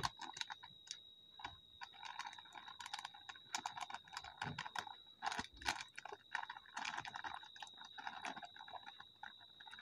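Crinkling and small clicks of a packet of black pepper powder being worked open by hand, over a faint steady high-pitched whine.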